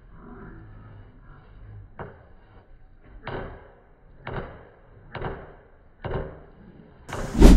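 Large metal ladle scooping and turning biryani rice in a big metal cooking pot, with five knocks about a second apart. A loud thump comes near the end.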